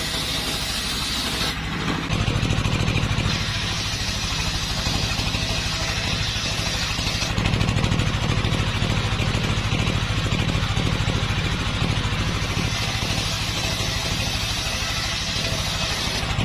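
Large table-mounted circular saw blade ripping wood, belt-driven by a stationary engine that runs steadily underneath with a fast, even chug. The blade's cutting hiss comes and goes as boards are fed through.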